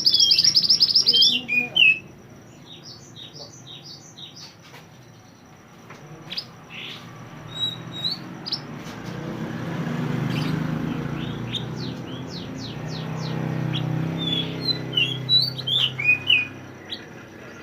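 A mantenan (minivet) singing: a loud, fast trill at the start, then a string of short, high chirps and quick downward-sweeping whistles, with a burst of rapid chirps near the end. A faint low rumble of background voices swells midway.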